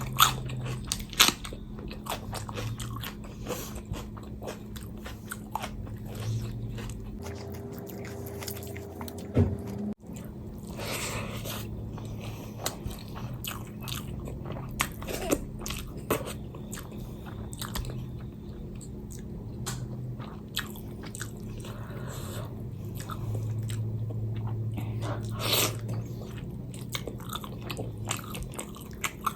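Close-miked eating: a person chewing and biting food, with many sharp mouth clicks and crunches over a faint steady low hum.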